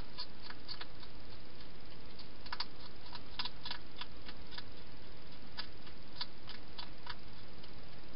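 Wild hedgehog eating from a bowl in a plastic feeding box: irregular crisp clicks of chewing, in short runs with brief pauses, over a steady background hiss.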